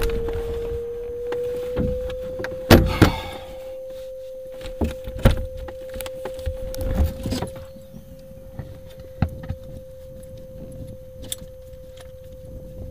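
Open-cockpit microlight's engine running with a steady tone as the aircraft rolls slowly along the rough grass strip after landing. Scattered knocks and rattles come from bumps in the ground, and the engine grows quieter over the first few seconds.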